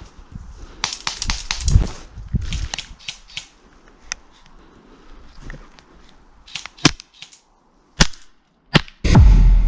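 Airsoft gun firing single shots: three sharp cracks about a second apart in the later part. Earlier there is rustling and crunching in dry brush, and just before the end a loud low rumble comes in.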